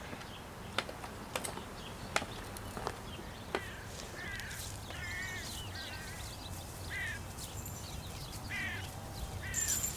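Birds giving short harsh calls, repeated several times from about four seconds in, after a few separate sharp clicks early on.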